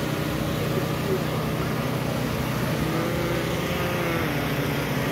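Street-crowd chatter over a steady low hum.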